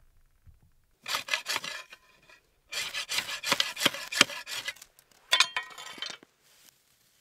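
A ferrocerium rod scraped hard with a hatchet to throw sparks, in three bouts of quick rasping strokes.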